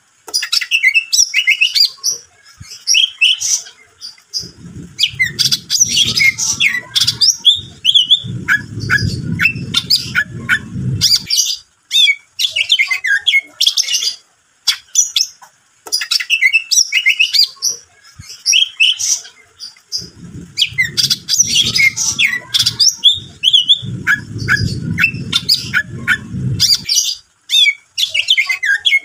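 Green leafbird (cucak ijo) in full, vigorous song: a fast run of varied chirps, trills and whistles, the gacor song used as a lure to set other cucak ijo singing. The sequence repeats about every 16 seconds, with a low rumbling noise under two stretches of it each time.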